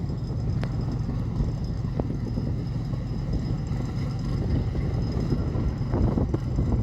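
Fishing boat engine running steadily with a low rumble, with a couple of sharp clicks early on and some knocking near the end.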